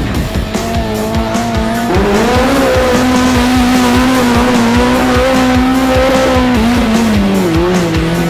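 Honda K24 four-cylinder, high-compression methanol engine in a USAC midget racing at high revs, its note climbing about two seconds in, holding steady, then dropping near the end.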